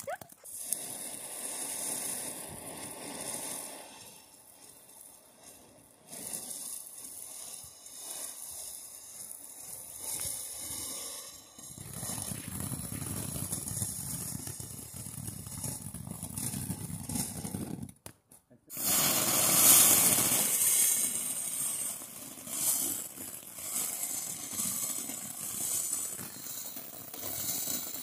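Ground fountain fireworks spraying sparks with a steady hiss. It breaks off briefly about two-thirds of the way through, then comes back louder.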